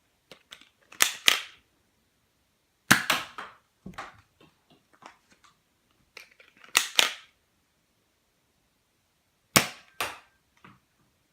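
NERF Star Wars Stormtrooper pistol being primed and fired, making sharp plastic snaps and clicks in groups. The loudest groups come about 1, 3, 7 and 9.5 seconds in, with fainter clicks between them.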